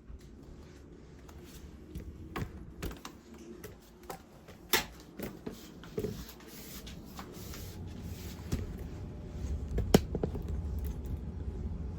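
Scattered clicks and knocks of small household objects being handled, with a low steady rumble building about two-thirds of the way in.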